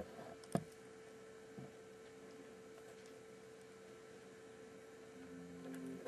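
Steady electrical hum with a single sharp click about half a second in; a lower hum swells briefly near the end.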